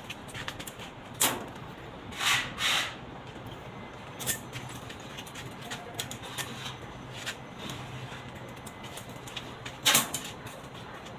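Scattered clicks and knocks with a few short scraping sounds, about a second, two and a half seconds and ten seconds in, over a low steady hum: hands-on repair work on a washing machine's body.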